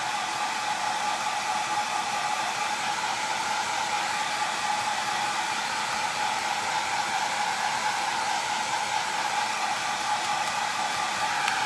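Handheld hair dryer running steadily, a rush of air with a constant whine, blown over freshly applied chalk ink to dry it.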